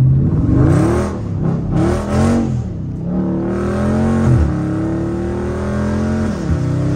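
Dodge Charger Scat Pack's 392 Hemi V8 under hard acceleration, heard from the cabin: the revs surge up twice, then climb steadily, falling sharply at upshifts about four and a half and six and a half seconds in. The power breaks the rear tyres loose on the wet road and the car gets sideways.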